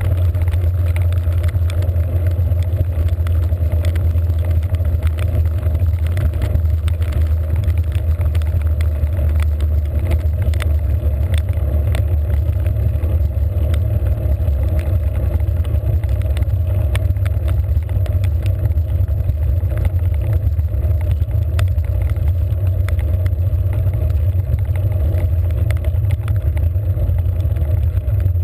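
Steady low rumble of wind and road vibration on a bicycle-mounted GoPro in its waterproof housing, with scattered light clicks of raindrops striking the case.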